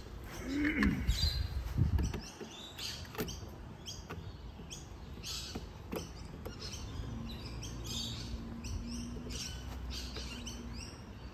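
Birds chirping over and over, short high falling notes. A few light clicks and knocks from the plastic gate latch parts being handled, with a low rumble in the first two seconds.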